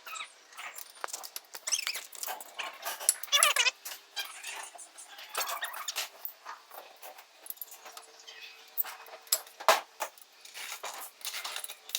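Scattered clinks and knocks of metal parts and tools being handled, with a short high wavering squeal a little past three seconds in and one sharper knock near the end.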